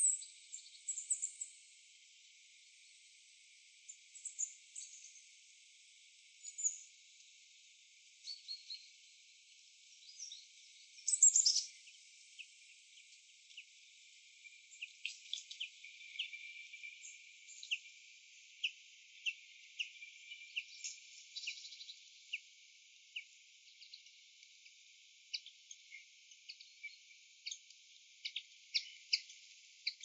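Red squirrel gnawing at a walnut shell, heard as many quick, irregular, sharp clicks from about halfway on. There are a few short high chirps in the first half, the loudest about eleven seconds in.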